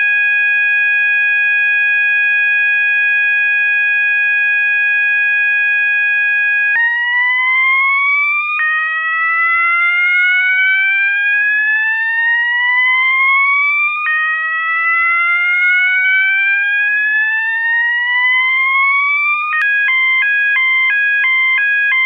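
System Sensor MASS multi-alert sounder strobe sounding its tones in turn. First a steady continuous tone, then from about seven seconds in a slow whoop: a rising sweep that starts over about every five and a half seconds. Near the end it switches to a hi-lo tone alternating between two pitches.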